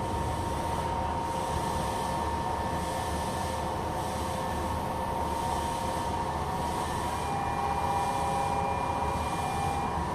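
Toei 5300 series electric train running away from a station, heard from on board: a steady rumble of wheels on track with held whining tones from the traction motors and inverter. About seven seconds in, further higher tones join the whine.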